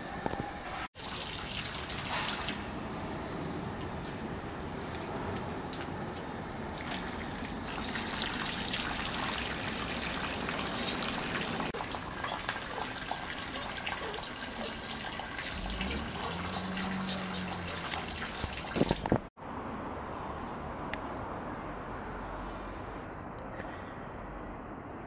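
Water running and splashing at a shrine's temizuya hand-washing basin, a steady trickling hiss, with a couple of sharp knocks just before it cuts off. After that, quieter open-air ambience.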